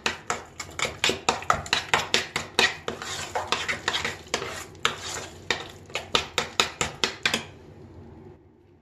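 Metal spoon scraping and knocking against a stainless steel pot while stirring thick cooked red lentils to work in butter and spices: a fast run of clicks, about four a second, that stops about seven seconds in.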